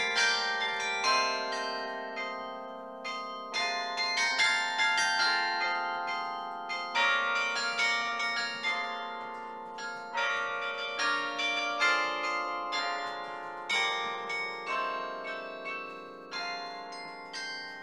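Carillon bells played from the baton keyboard: a tune of struck bell notes, each ringing on and overlapping the next, with a new note or chord every half second to a second.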